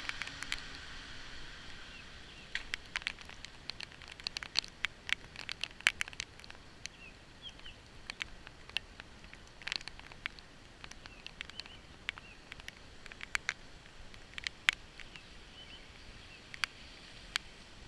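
Rain falling: a soft steady hiss with irregular sharp taps of single drops hitting a surface, several a second.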